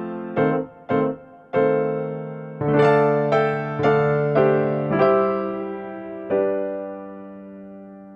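Background music on electric piano: a few quick notes, then a run of chords that ring and fade, ending on a held chord that dies away near the end.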